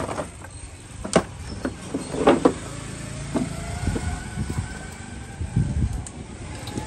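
Clunks and knocks from a Honda CBR sport motorcycle being handled as it is taken out, the loudest cluster about two seconds in, followed by low thuds, with a faint whine rising slowly in the background.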